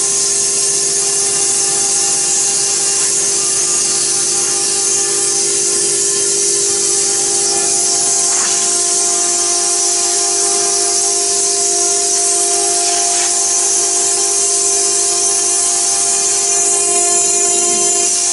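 CNC stone router's spindle cutting marble: a steady whine under a strong, even hiss.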